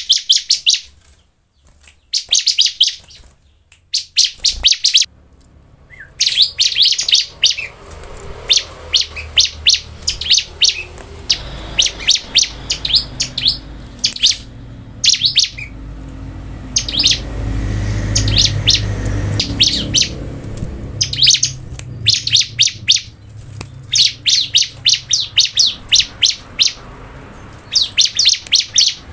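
Bar-winged prinia (ciblek) singing vigorously: rapid trains of high, sharp chirps in repeated bursts with short gaps. There is a quieter spell in the first few seconds, then near-continuous bursts. A faint low rumble sits under the middle stretch.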